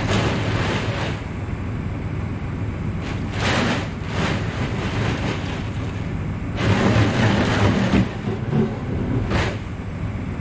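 Water from a fire hose drumming against the tractor cab's windows, heard from inside the cab, swelling in several loud surges as the spray sweeps across the glass. A steady low engine hum runs underneath.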